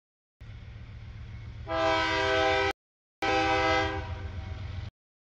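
CSX freight diesel locomotive sounding its multi-note air horn for about two seconds, starting a little under two seconds in, as a warning at a grade crossing. The engine's low rumble runs underneath, and the audio cuts out briefly several times.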